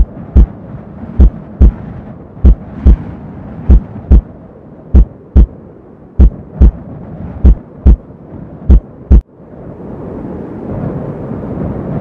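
Heartbeat sound effect: low double thumps, lub-dub, one pair about every 1.25 seconds, eight pairs in all. They cut off abruptly about nine seconds in and a low rumble swells up.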